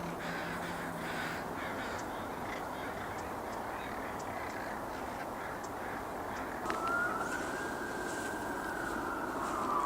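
A few short harsh bird calls over steady background noise, then about seven seconds in a siren starts with a quick rise into one long held wail that begins to fall near the end.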